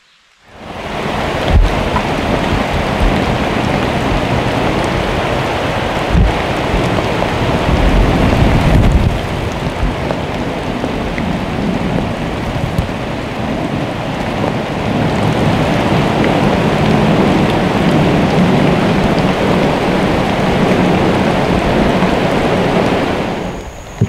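Heavy rain pouring down: a loud, steady hiss with a few deep rumbles in the first ten seconds. It starts abruptly about half a second in and drops away just before the end.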